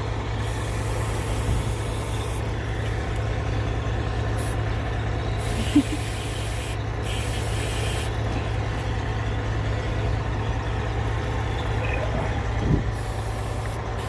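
Aerosol electronic contact cleaner sprayed in four hissing bursts, the first about two seconds long and the others shorter, flushing leaked oil out of a diesel engine's timing sensor wiring connector. A steady low hum runs underneath.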